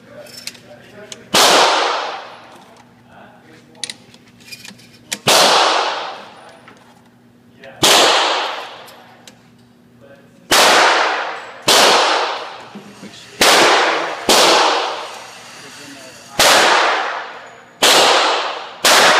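Gunshots on an indoor shooting range: about ten loud shots, irregularly spaced a second to four seconds apart, each with a long echo fading off the range walls, and small handling clicks between them.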